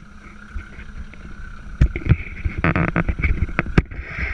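Wind buffeting the microphone on a boat at sea, with water washing along the hull and several sharp knocks.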